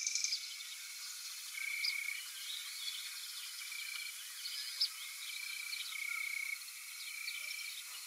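Faint evening nature sounds: short, steady high-pitched notes repeat about once a second, with scattered faint bird chirps above them. A songbird's rapid trill ends just after the start.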